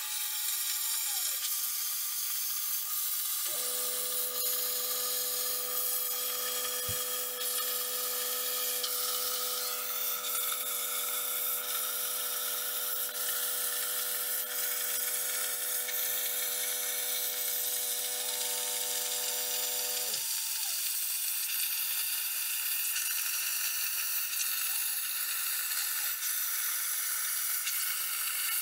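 Razorcut 45CNC plasma cutter's machine torch cutting steel plate on a Langmuir Crossfire Pro CNC table: a steady hiss from the plasma arc. The gantry's drive motors add a steady whine from about three and a half seconds until about twenty seconds in.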